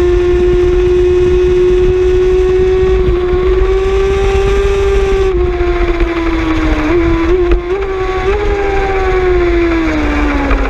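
Racing superbike's engine at high revs under full throttle, with heavy wind rush on the onboard microphone. About five seconds in the note steps down with an upshift; around seven to eight seconds it jumps briefly with downshift throttle blips, then falls steadily as the bike brakes for the corner.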